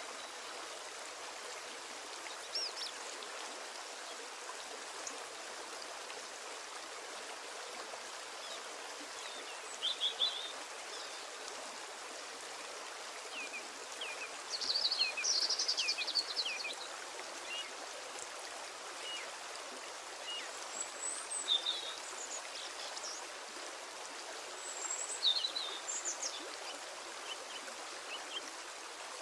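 Birds chirping now and then over a steady rushing hiss. The calls are short and quick, and a busier flurry comes about halfway through.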